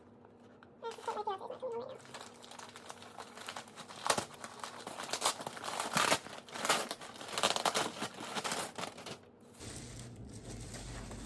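A mail package being torn open by hand, its packaging crinkling and rustling in irregular bursts as the contents are pulled out.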